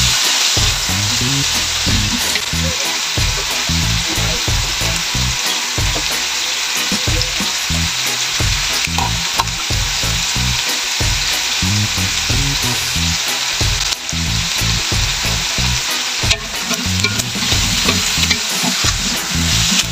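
Octopus, onion, garlic and chillies sizzling steadily in a hot metal wok as they are stir-fried, with a wooden spatula scraping through them and now and then knocking against the pan.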